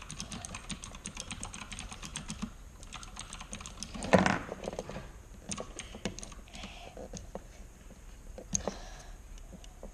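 Rapid light clicks and scratches from hands and small tools working over a hard drive's metal casing, with one louder knock about four seconds in.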